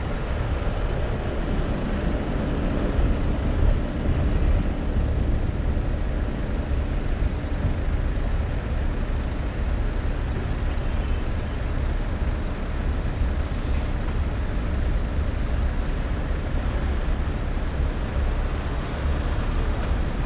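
A car being driven, its road and engine noise a steady low rumble without pauses. Faint high squeaks come briefly about halfway through.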